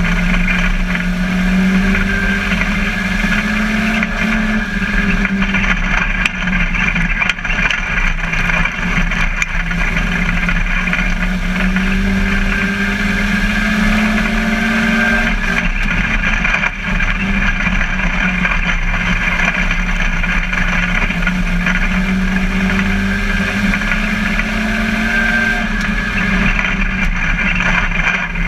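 Ministock race car's engine heard from inside the cockpit at racing speed. The revs climb and drop back in a repeating cycle about every ten seconds as it laps the oval, over steady road and wind noise.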